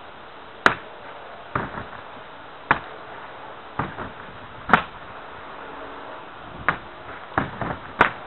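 Open-handed slaps against a heavy punching bag: a dozen or so sharp smacks, several in quick pairs, struck as two-handed blows to the ears.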